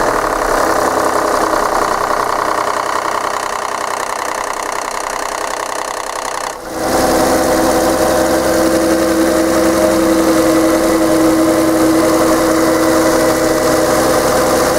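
The 2008 Hyundai Sonata's 2.7 V6 engine running steadily. About six and a half seconds in, its sound changes abruptly and it settles into a steady idle. This is the idle in which the owner reports a strange clicking, rattling sound after the gas pedal is released.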